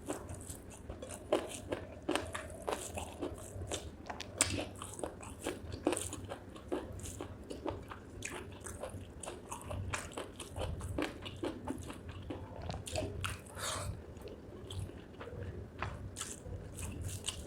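Close-miked chewing of spicy chicken gizzard with rice: irregular wet mouth clicks and crunchy bites, several a second.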